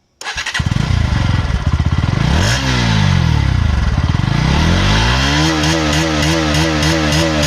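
Bajaj Pulsar NS160 motorcycle engine running, coming in about a quarter second in with a lumpy idle. It is then revved, with a slow rise and fall in pitch, followed near the end by a quick series of short throttle blips.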